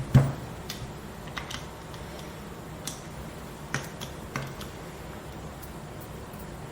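Small hard clicks and taps of pistol parts and a driver being handled as the grips come off a Dan Wesson DWX frame, with one louder knock just after the start and about six lighter clicks spread over the next few seconds.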